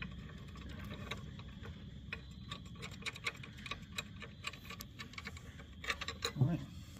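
Scattered light clicks and ticks at an irregular pace over a low steady hum, with a brief low voice-like sound near the end.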